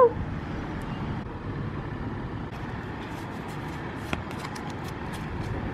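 Steady hum of distant town traffic, with faint clicks and rustle of trading cards being handled from about halfway in.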